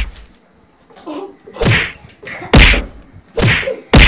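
A boy's punches landing on another child's body: a series of dull thumps and smacks, about four within a few seconds.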